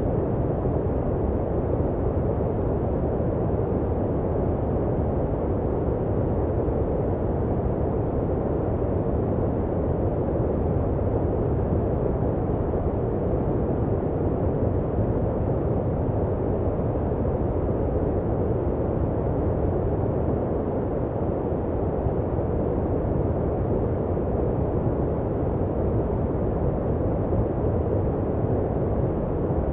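Steady electronically generated sleep noise: an even, deep, muffled rush with little high hiss, unchanging throughout.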